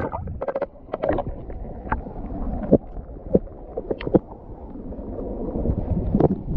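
Seawater sloshing and splashing in a shallow rock pool, with scattered small clicks and knocks, over a low wind rumble on the microphone.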